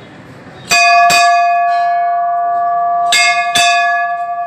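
Large hanging brass temple bell rung by hand: four strokes in two quick pairs, the first pair about a second in and the second a little after three seconds, with the bell ringing on between them.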